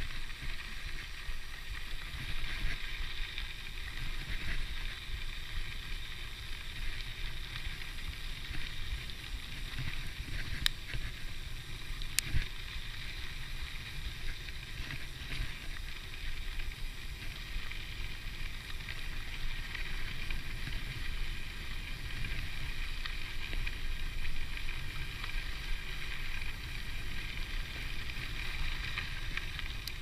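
Hope Pro 4 rear hub buzzing steadily with its high freehub ratchet sound as the bike rolls, over tyre rumble on a packed-dirt path and wind on the microphone. Two sharp clicks come about ten and twelve seconds in.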